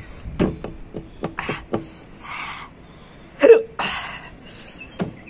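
A person making breathy mouth sounds: short hisses and gasps with clicks, and one short, loud vocal outburst about three and a half seconds in.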